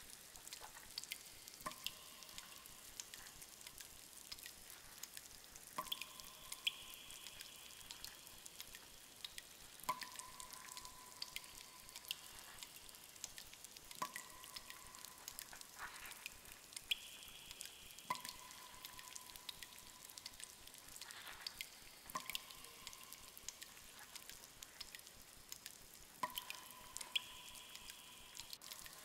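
Cave ambience: water dripping, with a faint scatter of small drip ticks throughout. Every few seconds a louder drop plinks into water with a short ringing tone.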